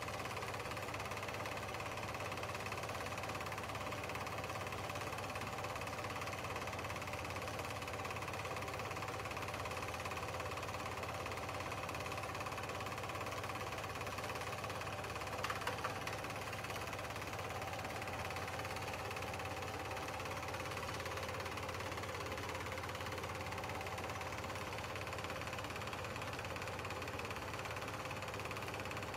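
Film projector running: a steady mechanical whir with a fast, even clatter and a faint whine, and a couple of brief louder clicks about halfway through.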